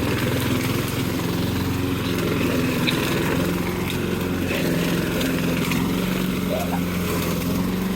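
Walk-behind gas lawn mower engine running steadily at a constant pitch as it is pushed through tall, dense overgrowth.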